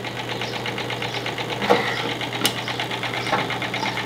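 Toy blender's small electric motor running with a steady, fast buzz. A few light knocks come in about halfway through.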